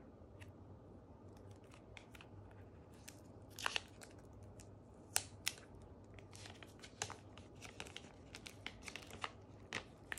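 Clear plastic protective film being peeled and pulled off a new smartphone: faint, scattered crinkles and small clicks, coming more often in the second half.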